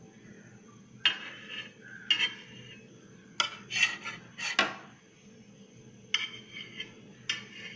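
Kitchen utensil clinking and scraping against a pan as a bread sandwich is turned over while toasting, in a handful of short, separate strokes, with a cluster of three or four near the middle.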